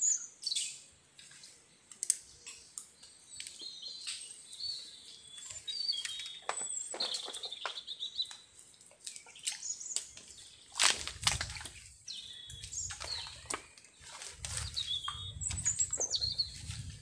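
Wild birds chirping and whistling in short, repeated calls in a mangrove forest, with scattered knocks and rustling close by, the sharpest knock about eleven seconds in.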